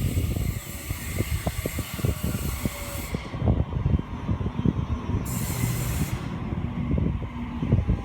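Sydney Trains Waratah electric train standing at the platform with air hissing from its brake system; the hiss cuts off about three seconds in and comes back briefly a couple of seconds later, over irregular low rumbling.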